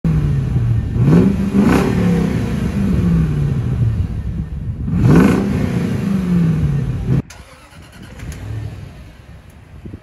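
Range Rover Sport L320's supercharged 5.0 L V8 through a Guerrilla bypass exhaust, blipped twice, about one and five seconds in, each rev rising quickly and falling back to idle. About seven seconds in the sound drops abruptly to a much quieter idle.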